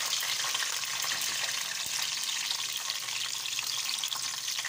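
Hot oil sizzling in a pot with whole spices and fried onions frying in it: a steady, dense crackling hiss.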